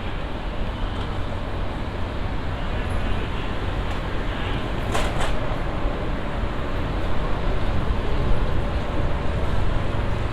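Steady, loud city ambience dominated by a low rumble, like passing vehicles or a ride's machinery, with a short sharp clatter about five seconds in.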